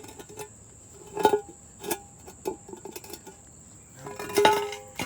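Steel transmission pan clanking and ringing as it is handled and set down: a handful of metallic knocks, the loudest about a second in and near the end, each leaving a short ring. Crickets trill steadily in the background.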